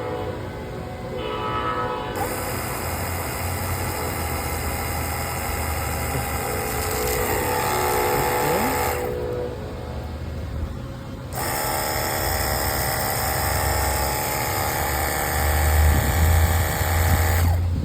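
Cordless battery-powered pressure washer running: a steady motor and pump whine with the hiss of the water spray. It starts about two seconds in, stops for about two seconds midway, then runs again until it cuts off near the end.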